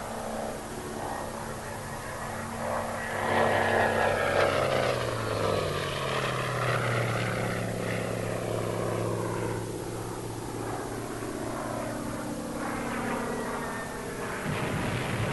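Propeller plane's piston engine droning. A few seconds in it grows louder and its pitch slides down as the plane passes, then it runs on steadily at the lower pitch.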